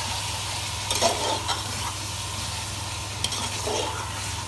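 Chicken pieces and ginger-garlic paste sizzling in hot oil in a pot while a spoon stirs them, scraping against the pot a few times.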